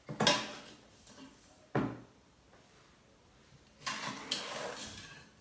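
Granulated sugar poured from a small glass into a large plastic mixing bowl: a short rustling hiss at the start and a longer one near the end, with a single sharp knock in between.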